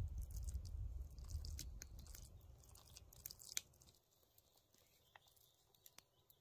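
A knife spreads a wet, chunky vegetable paste over raw beef steak on a wooden board, with squishing, scraping and small clicks over a low rumble. From about four seconds in, only faint light ticks remain as sliced red onion rings are dropped onto the meat.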